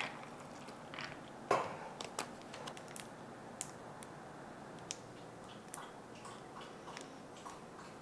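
Ice cubes crackling and clicking in a glass of cold milk as coffee is poured over them. The small cracks are scattered, and the loudest comes about a second and a half in.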